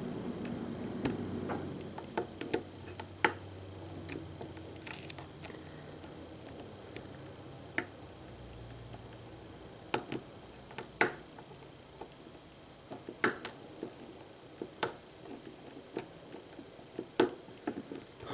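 Steel lock picks working in a Lockwood oval pin-tumbler cylinder: a short hook lifting pins against a tension wrench, giving scattered, irregular sharp metallic clicks every second or so.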